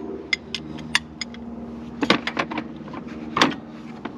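Sharp clicks and metal clanks of a ratchet and breaker bar being worked on the crankshaft bolt of a seized Subaru 2.5L engine that will not turn. A few quick clicks come in the first second and a half, then louder knocks about two seconds in and again near the end, over a steady hum.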